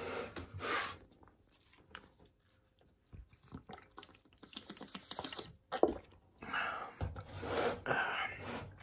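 Thin plastic gallon water jug being handled: scattered crinkling and clicking of the plastic and cap, with a sharp knock about six seconds in and a busier crinkly stretch near the end.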